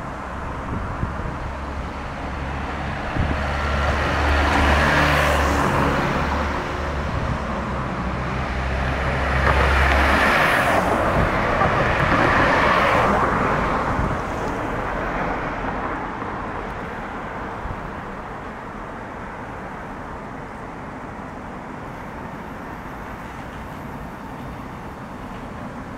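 Cars passing on a city street: two swells of engine and tyre noise, the first about five seconds in and the second, louder one around ten to thirteen seconds, with a low engine hum under the first. After that, a quieter steady traffic hum.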